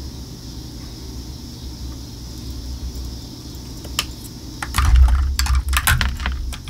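Lipstick tubes being handled, with a quick run of sharp plastic clicks and light knocks about two-thirds of the way in, some heavier thuds among them. A steady low hum sits underneath.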